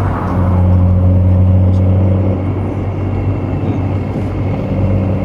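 BMW M235i's turbocharged straight-six engine running at steady revs, a constant drone heard from inside the car.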